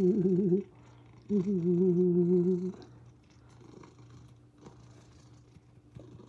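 Domestic cat purring steadily. Two long, wavering 'ooh' coos from a person's voice are louder than the purr, in the first three seconds.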